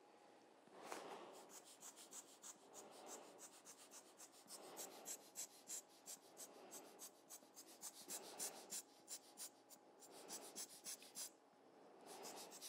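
Faint scratching and light ticking of a fine paintbrush working alcohol ink on Yupo paper, with soft airy whooshes every couple of seconds.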